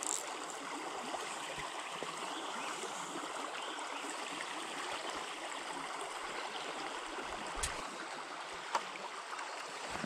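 Small forest stream flowing, a steady rush and babble of water running over snags and branches. Two faint clicks late on.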